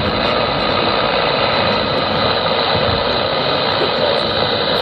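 CB radio receiver putting out a steady hiss of band noise with a hum through it, no voice on the channel.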